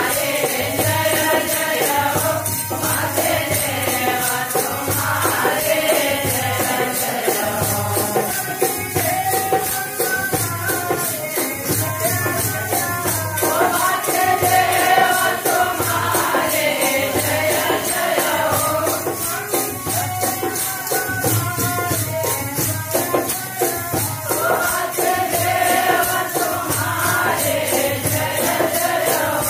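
Voices singing a devotional bhajan over the steady, even clashing of small hand cymbals.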